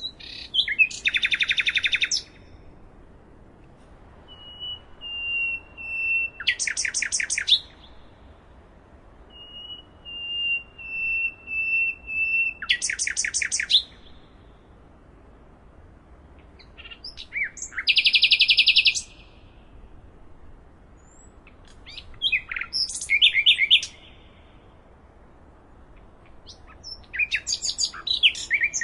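Nightingale singing six short song phrases a few seconds apart. Two of them open with a slow run of pure whistled notes that swell into a loud, rapid trill; the rest are fast trills and chattering notes.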